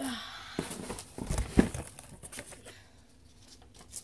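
Paper and packaging rustling and crinkling inside a cardboard box as its contents are lifted out, with a few sharp knocks and crackles in the first two seconds, then quieter handling.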